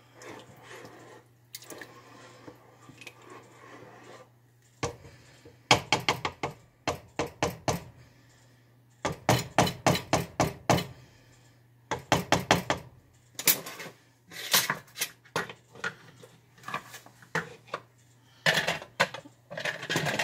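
A spoon stirring soup in a pot, clinking and knocking against the pot's sides in quick runs of strikes, about five a second, with short pauses between. The first few seconds are softer.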